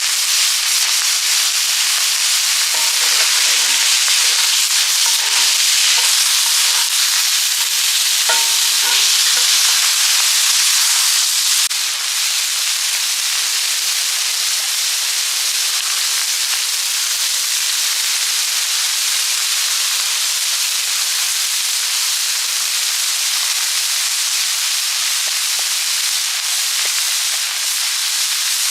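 Food sizzling steadily in a pan over a wood fire, as the chicken hearts and onions fry. The sizzle eases slightly about twelve seconds in.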